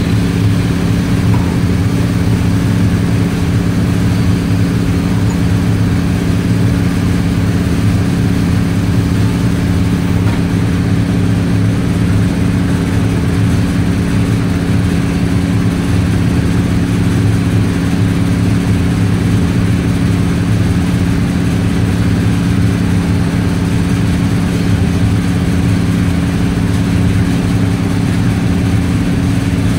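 A loud, steady mechanical hum with a low drone that does not change.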